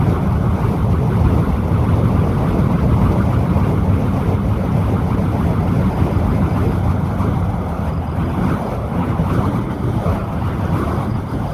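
Spinning fire staff, its burning ends making a steady, low whooshing rush of flame as it is twirled.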